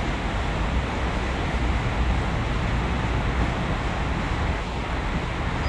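Steady low rumble and hiss of outdoor background noise: wind buffeting the microphone with distant street traffic.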